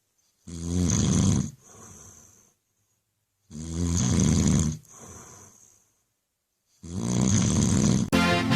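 A person snoring: three loud snores on the in-breath, about three seconds apart, the first two each followed by a softer breath out.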